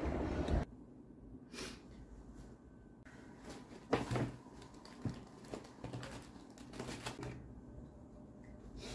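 Outdoor wind and traffic noise that cuts off suddenly under a second in, then rustling of a cloth tote bag with scattered small clicks and knocks as items are taken out of it in a small room.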